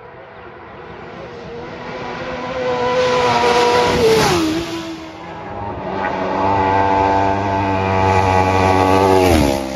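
Two road-racing motorcycles go past at full speed one after the other, about four seconds in and again near the end. Each engine note builds as the bike approaches, then drops sharply in pitch as it goes by.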